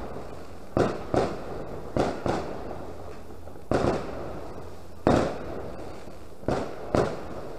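Firecrackers going off as single sharp bangs at irregular intervals, about nine of them, some in quick pairs.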